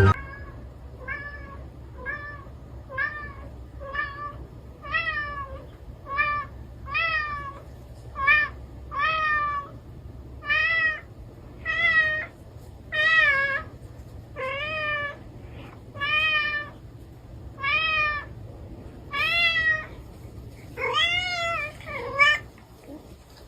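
A cat meowing over and over, about one short meow a second, each rising then falling in pitch. The last few come louder and closer together.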